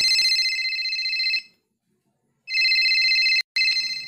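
Landline telephone ringing: two rings about a second apart, with a sharp click breaking into the second ring.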